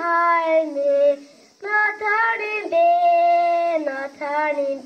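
A young boy singing solo, with no accompaniment heard: sung phrases with long held notes, the longest lasting about a second near the middle, broken by a short breath pause about a second in.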